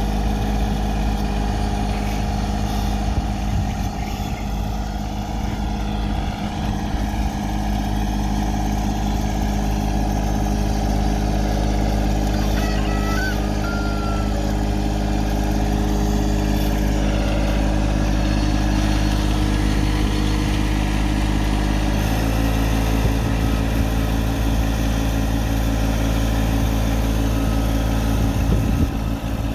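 John Deere 1025R subcompact tractor's three-cylinder diesel engine running steadily under load while pulling a plastic mulch layer. Its note shifts slightly about two-thirds of the way through.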